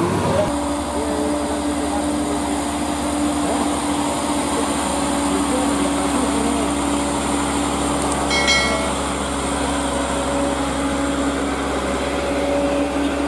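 Hino 500 truck's diesel engine labouring at low speed up a steep incline, a steady drone held at one pitch. About eight seconds in, a brief high tone sounds over it.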